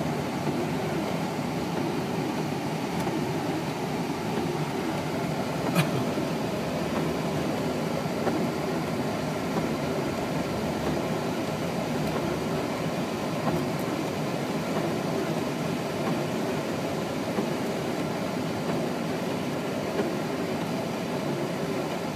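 Steady low noise of a car heard from inside its cabin, with one sharp click about six seconds in.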